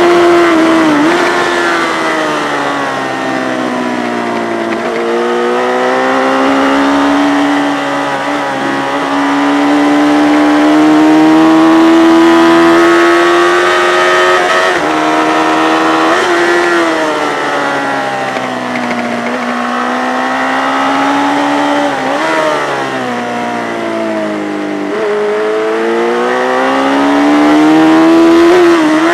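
Yamaha FZ600's air-cooled inline-four racing engine pulling hard under load. Its pitch climbs steadily, then drops sharply several times as it shifts gear and backs off.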